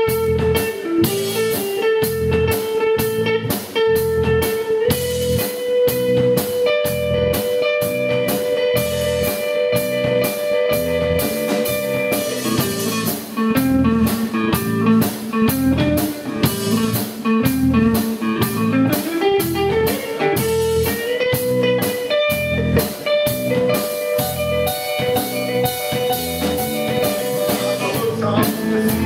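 Live band playing an instrumental passage: guitar holding and sliding between sustained notes over a steady, fast drum beat, loud and heard through the room.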